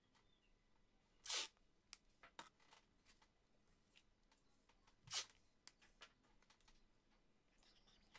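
Sellotape being worked onto paper sheets: two short rasps, about a second in and again about five seconds in, among faint taps and rustles of hands pressing the tape down.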